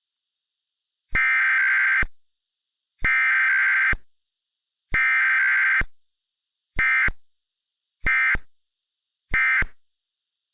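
Emergency Alert System SAME digital data bursts: three buzzy, warbling tone bursts of about a second each, a second apart, then three much shorter bursts, the end-of-message code that closes the alert. Each burst starts and stops with a click.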